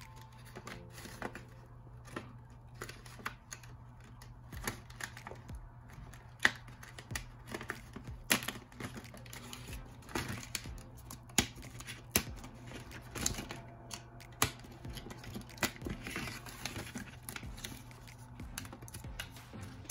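A sticker sheet being bent and handled and a label peeled off its paper backing: irregular paper crinkles, clicks and taps, with a few sharper louder clicks scattered through, over a steady low hum.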